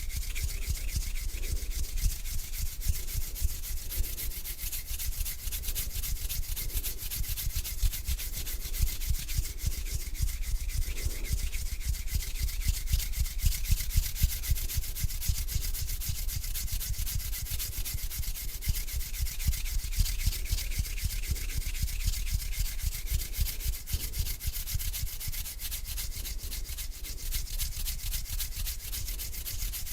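Bare hands rubbing together close to the microphone: a continuous dry, scratchy friction of skin on skin, kept up without a pause.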